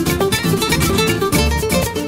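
Background music: acoustic guitar played fast, with quick strums and plucked notes in a Latin style.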